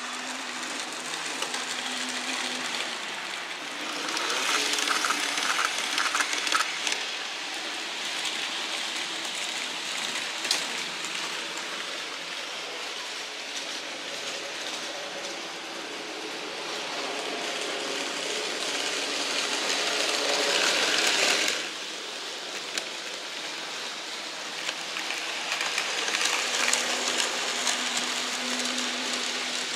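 N-scale model trains running on the layout track: a steady rattling hiss of small wheels on rail over the faint whine of the locomotives' electric motors. It swells three times as trains pass close, and drops off suddenly about two-thirds of the way through.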